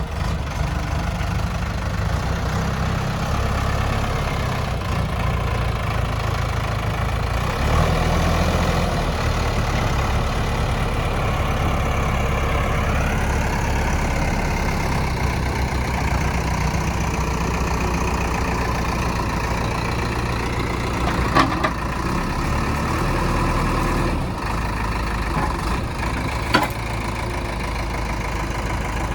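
Heavy vehicle's diesel engine idling steadily, with two short sharp knocks about five seconds apart in the second half.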